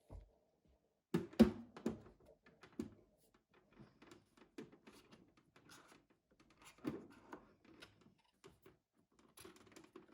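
Irregular clicks and knocks of hard objects being handled, loudest about a second and a half in, with a second cluster around seven seconds in.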